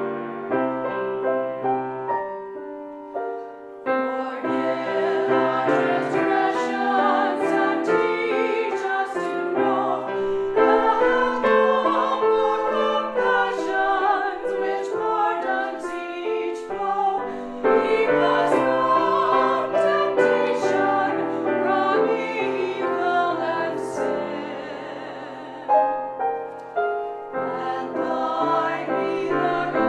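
Church choir singing a prayer anthem with piano accompaniment.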